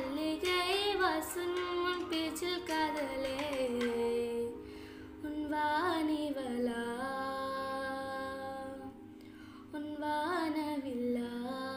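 A solo voice singing a wordless, ornamented melody in the Carnatic-tinged style of a Tamil film song. It sings three phrases with gliding turns, each ending on a long held note.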